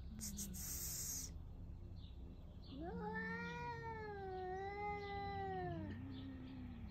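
Two cats squaring off in a territorial standoff: a low growl, a brief hiss near the start, then one long wavering caterwaul of about three seconds that sinks back into a low growl near the end.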